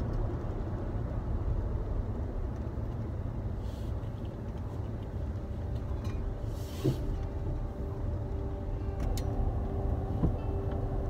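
Steady low rumble of a pickup truck driving, engine and road noise heard from inside the cab. A steady low tone joins about seven seconds in.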